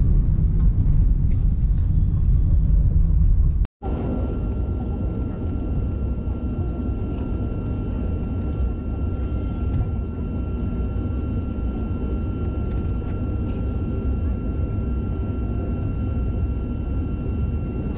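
A car ride heard from inside the cabin as a loud, steady low rumble. About four seconds in it cuts off sharply to jet airliner cabin noise: a steady engine rush with a thin, steady high whine as the plane taxis.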